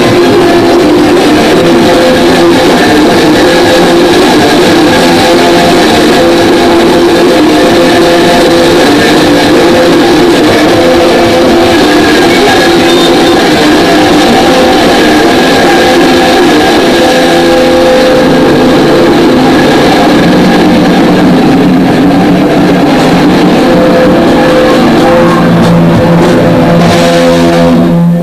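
Loud guitar-driven rock music, cutting off abruptly near the end.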